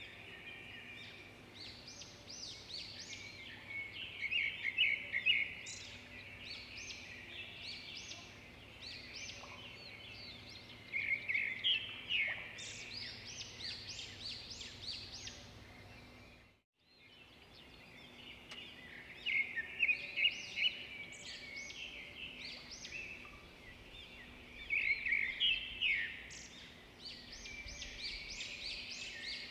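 Small birds chirping and twittering: quick runs of short, high notes in clusters every second or two. The sound cuts out briefly about two-thirds of the way through.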